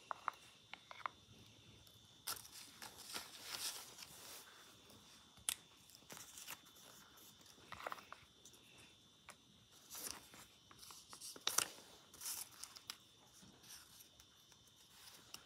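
Faint handling noises: scattered light clicks and short rustles as a hand moves small paper items around inside a clear plastic tub.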